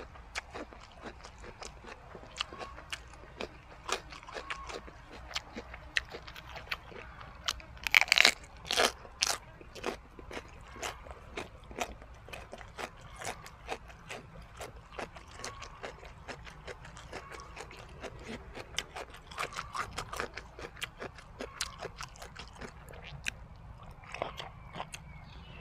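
Close-up chewing and crunching of jellyfish and beef omasum salad, with rapid wet mouth clicks throughout. A burst of louder crunches comes about eight seconds in.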